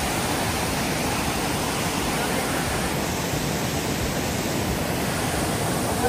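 Waterfall running full, swollen by rain: a steady, even rush of falling water.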